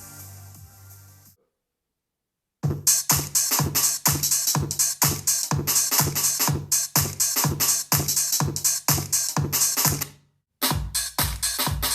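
Electronic music with a steady drum-machine beat played through a portable Bluetooth speaker. The previous track fades out, there is a second or so of silence, then the new track starts. Near the end it cuts out briefly and comes back in.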